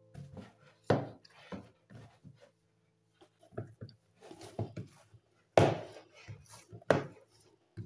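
Bread dough being kneaded and pressed by hand in a plastic bowl: irregular dull thumps and handling noises, with the two loudest thumps a little after halfway and about a second later.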